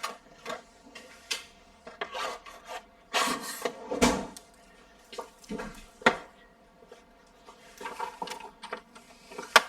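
Handling noises from work on an iMac's parts: irregular rubbing and scraping with small clicks, and sharper knocks about four and six seconds in.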